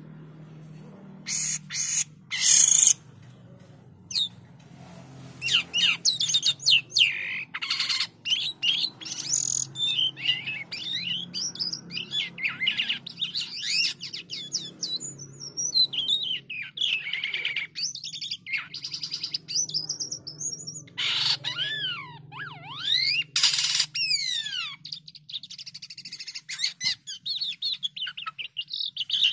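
White-shouldered starling (jalak kapas) singing a long, varied song of whistles, rising and falling glides and fast trills, broken by a few loud harsh chattering bursts.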